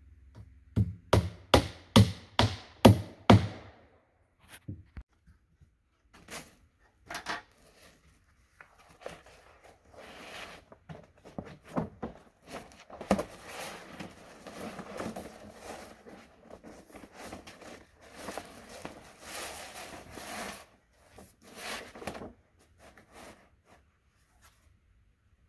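About six evenly spaced hammer blows on the wooden roof boards of a log shed in the first few seconds. Then scattered knocks and a long rustling and scraping as a roll of roofing is set on the boards and unrolled.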